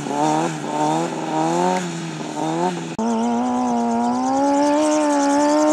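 Stunt motorcycle's engine revving in quick throttle blips during a wheelie. About three seconds in, the sound cuts and the engine is held at high revs, its pitch slowly climbing.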